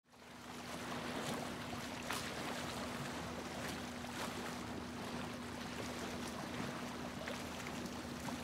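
Small waves lapping at a sandy lakeshore: an even wash of water noise with faint splashy ticks. A steady low hum runs under it. The sound fades in at the start.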